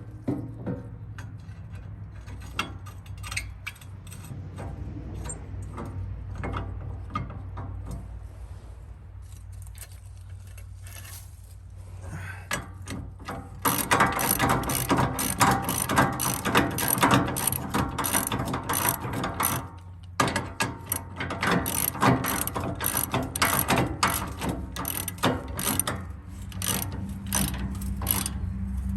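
Socket ratchet wrench clicking as a tow hook bracket bolt is run in and tightened: scattered clicks at first, then fast continuous ratcheting about halfway through, a brief pause, and more fast ratcheting.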